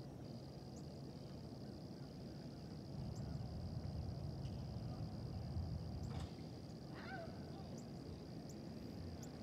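Outdoor dawn-chorus style ambience: a steady high-pitched insect trill with small high chirps every second or two, over a low rumble that swells in the middle. A couple of short bird calls come near the end.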